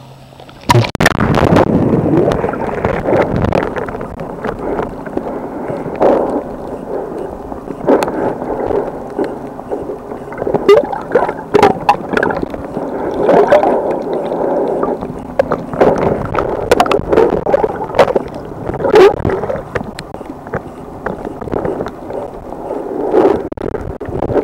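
Muffled underwater gurgling and sloshing, heard through a submerged camera housing, with irregular sharp clicks and knocks. It starts suddenly just under a second in.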